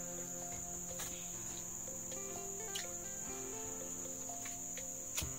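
Steady high-pitched drone of forest insects, with a soft melody of background music underneath and a few light clicks.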